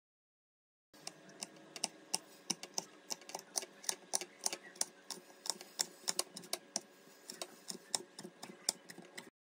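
Kitchen knife dicing red pepper on a wooden cutting board: quick, uneven taps of the blade on the board, about four a second. It starts about a second in and cuts off abruptly near the end.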